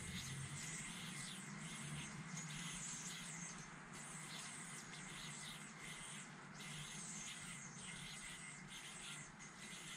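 Faint hissing swishes of a spinning yoyo and its string sliding over the fingers during a string trick, coming and going irregularly over a steady faint hum.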